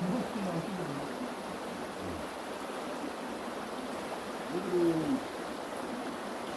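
Mountain stream water running steadily, with a short murmur of voices near the start and again about five seconds in.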